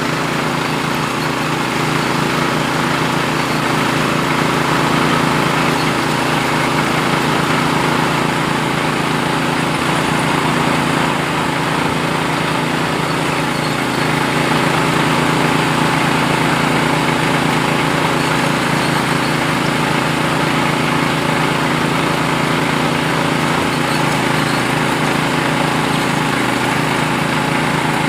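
Small engine of a well-drilling rig running steadily at constant speed.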